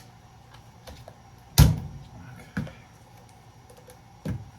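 Sharp knocks from work on a breaker panel as a stuck part is worked at, one loud knock about a second and a half in and three fainter ones spread around it.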